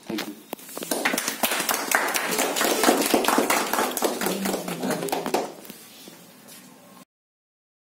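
A small group of people clapping their hands, a dense patter of claps that builds for a few seconds and then dies away.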